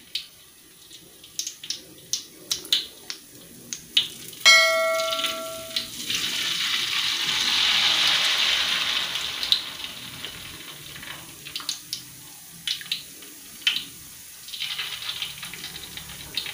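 Hot cooking oil sizzling in a wok as rempeyek batter is spooned in; the sizzle swells for a few seconds just after the middle and then dies down. Scattered sharp clicks run through it, and about four and a half seconds in a bell chime from the subscribe-button overlay rings for about a second and a half.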